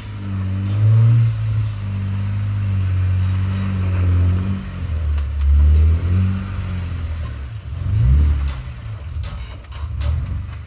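A 2019 Ram Power Wagon's 6.4-litre HEMI V8 running at low revs on a rough trail, its note rising and falling with the throttle and climbing briefly about eight seconds in. A few sharp knocks come near the end.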